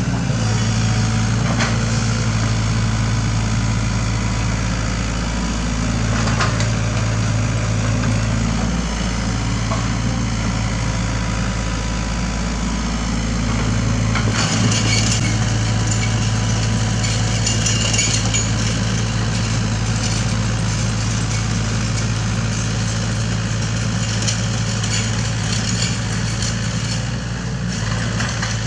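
SANY SY75 mini excavator's diesel engine running steadily under load as the machine works, with bursts of clatter around the middle and again near the end.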